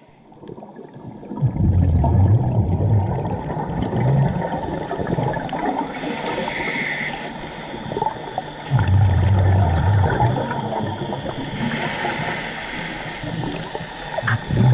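Scuba diver breathing through a regulator underwater: a low bubbling rumble of exhaled bubbles about every six to seven seconds, with a fainter hiss of the regulator on each inhale in between.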